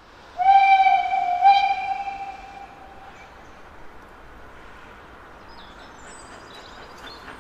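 Steam locomotive whistle of the Rasender Roland narrow-gauge railway: one long blast, sounded again about a second in, fading away by about three seconds. Birds chirp faintly near the end.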